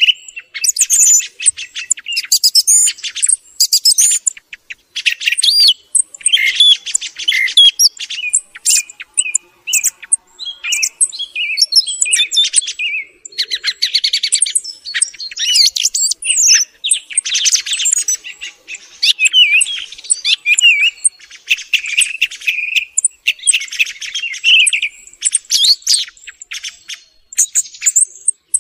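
Song thrush singing: a continuous run of varied phrases of whistles and rapid clicking notes, with short pauses between phrases.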